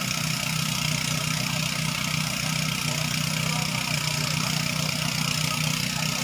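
A small engine running steadily at constant speed, a continuous low drone with no change in pitch or level.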